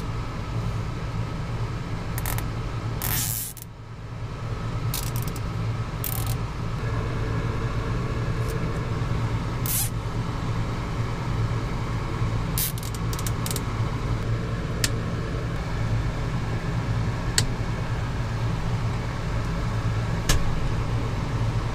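Nylon zip ties being handled and cinched around hydraulic steering hoses: short, sharp zips and clicks scattered through, over a steady low machine hum.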